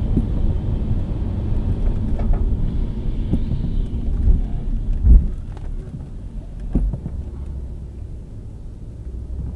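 Car cabin heard through a dashcam microphone while driving in heavy rain: steady low road and engine rumble with rain on the windshield, and scattered knocks and thumps, the loudest about five seconds in. It gets somewhat quieter after about six seconds.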